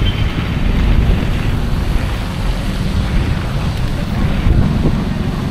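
Typhoon wind buffeting the microphone in a loud, uneven rumble, over a steady hiss of heavy rain.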